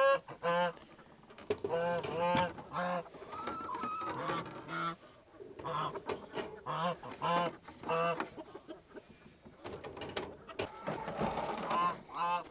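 Domestic goose honking in a series of short, repeated calls that come in irregular runs with brief pauses between them.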